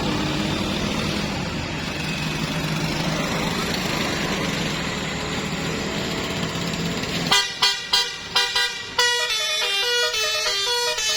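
A bus engine and road noise run for about seven seconds, then a tour bus's telolet horn plays a quick tune of short, clear notes that jump up and down in pitch.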